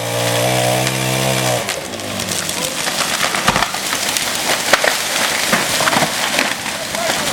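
A chainsaw runs steadily and cuts off about a second and a half in, followed by several seconds of wood cracking and splintering with many sharp snaps.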